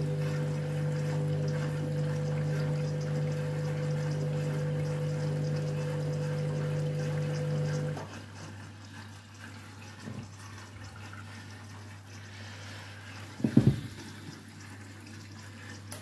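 Candy front-loading washing machine's drum motor humming steadily as it tumbles an overloaded wet load (about 8 kg in a 7 kg drum) during the rinse, with water sloshing. Halfway through the motor stops for the pause between drum turns, leaving a quieter wash of water, broken by one short loud swish near the end.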